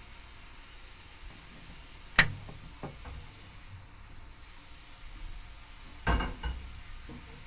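Sori Yanagi cast iron frying pan knocking against the gas stove's metal pan grate. There is one sharp clank about two seconds in as it is lifted off, and a louder double clank near the end as it is set back down.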